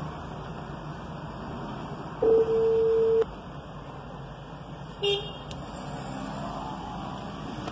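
A steady car-cabin hum broken by an electronic phone tone: one beep about a second long, then a short second beep about two seconds later, like the ringing tone of a mobile call being placed.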